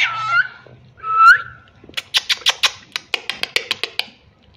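Cockatiel calling: a short rising call, then a loud rising whistle about a second in, followed by a quick run of short, sharp chirps, about six a second.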